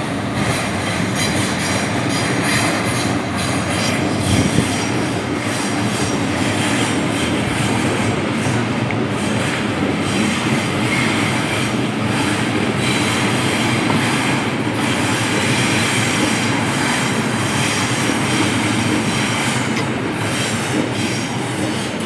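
Sydney Trains double-deck electric train running past, with steel wheels clacking over rail joints and a thin wheel squeal over the rumble. The noise drops away suddenly at the very end as the last car clears.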